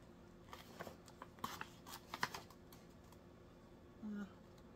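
A few faint, light clicks and rustles, mostly in the first couple of seconds, as a plastic measuring scoop digs into powdered creamer in a stand-up pouch and the pouch is handled.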